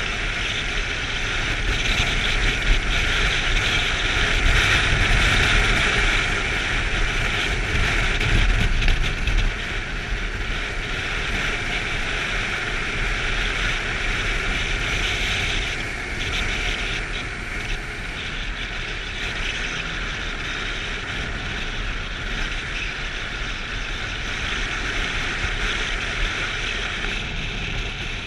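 Motorcycle on the move: its engine running under a steady rush of wind and road noise, louder for the first ten seconds or so, then easing.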